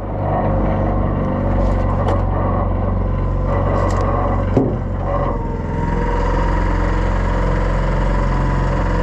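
Outboard motor of an aluminum set-net skiff running steadily, with a brief knock about halfway through.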